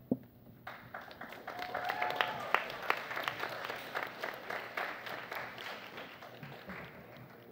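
Audience applauding a speaker's introduction: many hands clapping, starting about a second in, fullest for a couple of seconds, then dying away near the end.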